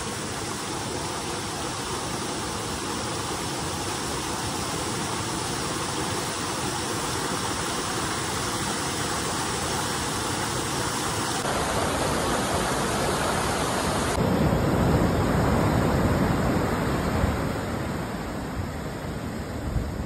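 Steady rush of a waterfall pouring over rocks into a pool. The sound changes abruptly twice, after about eleven and fourteen seconds.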